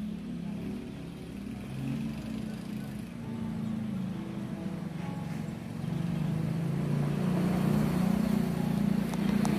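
A car engine running close by on the street, a low hum that grows louder over the last few seconds.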